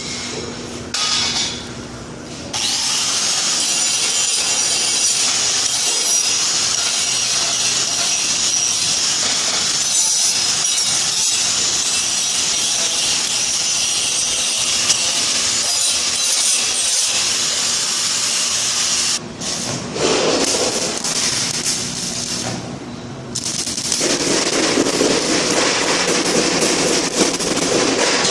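Angle grinder grinding steel: a steady, high, hissing grind that gets going about two and a half seconds in, breaks off briefly about two-thirds of the way through, then carries on.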